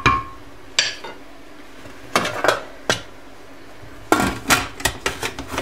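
Metal clanks and knocks as the lid of a Fagor stainless steel pressure cooker is fitted onto the pot. A few separate knocks come first, then a quick run of them about four seconds in.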